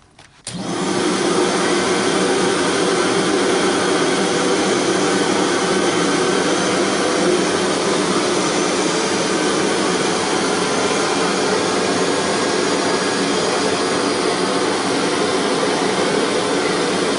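All-metal canister vacuum cleaner with a two-fan motor, running at full suction with a steady rushing whoosh. It starts abruptly about half a second in.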